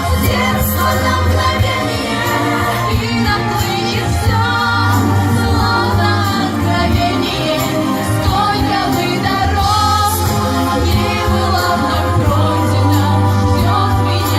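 Music: a pop song with girls' voices singing a melody over a backing track with a steady bass.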